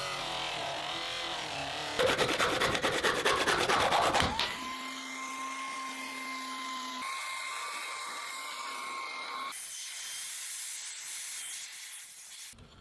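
A run of short workshop sounds of rust-restoration work. About two seconds in comes a loud, rapid rasping, like sanding or filing metal. A steady high whine follows, and then a softer hiss that fades near the end.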